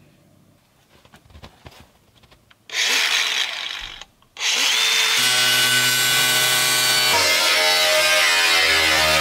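Cordless grinder with a cut-off disc cutting through the corrugated steel wall of a shipping container. A first short cut starts about three seconds in and stops briefly, then the grinder runs steadily from about four and a half seconds on. Background music comes in over it, and faint handling clicks and rustles come before the first cut.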